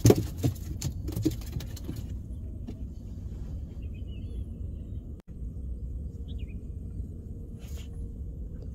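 Wind buffeting the microphone over open water as a steady low rumble, with a few sharp knocks and clicks of handling in the boat in the first couple of seconds.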